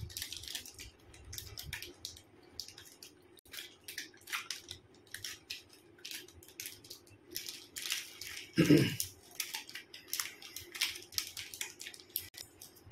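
Soft, irregular crunching and crinkling: a chocolate bar with almonds being bitten and chewed while its foil wrapper is handled. A short low hum of a voice about two-thirds of the way through.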